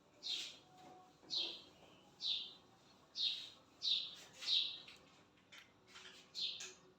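A small bird chirping repeatedly, about one short chirp a second, each chirp falling in pitch. A few faint clicks come in the second half.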